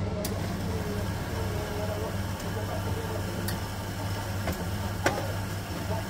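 Schaerer Coffee Soul automatic coffee machine running between dispensing stages: a steady low hum with a few sharp clicks, the loudest about five seconds in.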